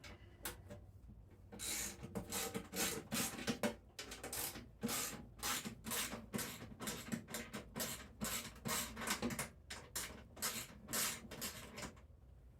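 Repeated rubbing or scraping strokes, about two to three a second, starting about two seconds in and stopping near the end.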